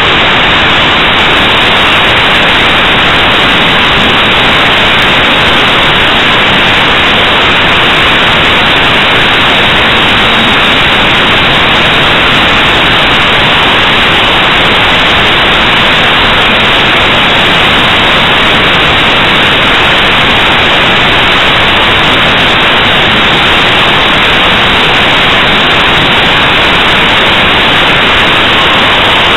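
Loud, steady static hiss from the recording itself, even and unbroken, with no distinct sound standing out above it.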